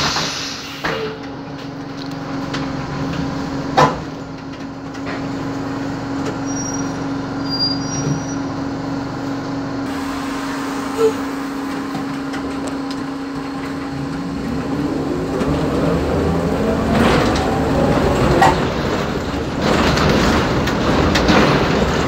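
Interior of an Iveco Socimi 8820 trolleybus: a steady electric hum with a few knocks and rattles. About two-thirds of the way in, the electric traction drive starts a rising whine as the trolleybus accelerates, and the running noise grows louder.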